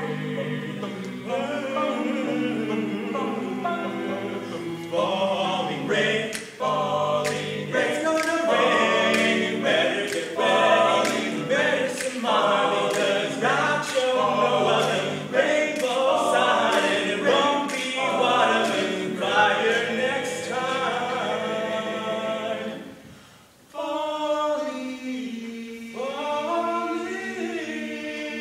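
A five-voice a cappella group singing a gospel arrangement in close harmony over a deep bass line, with crisp percussive clicks through the middle. About 23 seconds in the singing breaks off briefly, then resumes on a held chord beneath a lead voice that slides up and down.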